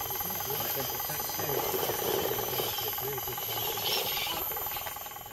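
Faint, indistinct voices of people talking, with a steady high thin whine from insects behind. The sound fades out near the end.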